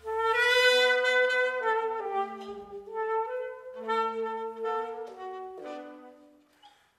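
Trumpet and tenor saxophone playing a jazz melody of held notes together in two lines, the lower line under the trumpet. The phrase comes in sharply and fades out shortly before the end.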